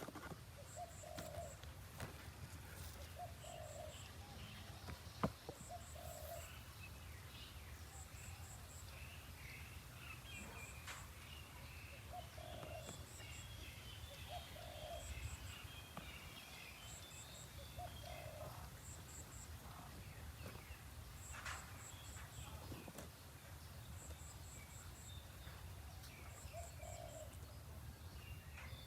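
Faint outdoor ambience of birds calling: a short low call repeating every two to three seconds and high thin chirps in threes, with a burst of chirping in the middle, over a steady low rumble. A single sharp click about five seconds in.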